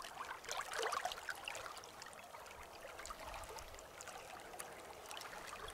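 Faint trickling water, steady, with light irregular ticks that are busier in the first second or so.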